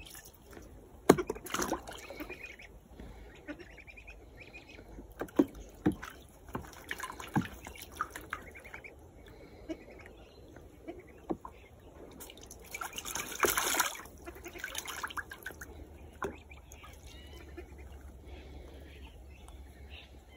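Young Australian wood ducks bathing in a shallow plastic paddling pool: scattered sharp splashes and drips in the first several seconds, then a longer burst of splashing a little past halfway as they wash.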